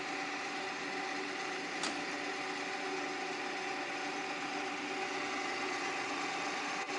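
DONAU rapid radial drilling machine running, with a steady mechanical hum from its motor and spindle gearing and a faint click about two seconds in.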